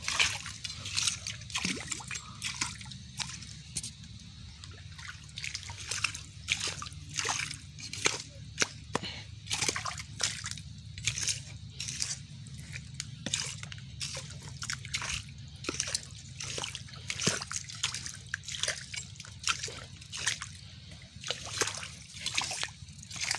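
Feet wading through shallow muddy water: irregular sloshes and splashes, about one or two a second, over a steady low rumble.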